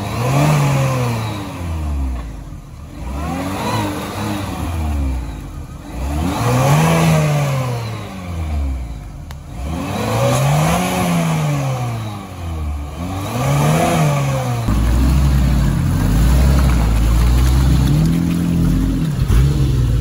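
Off-road vehicle's engine revving up and down about five times as it works to get out of a stuck spot with one axle hanging, then held at steady revs for the last few seconds.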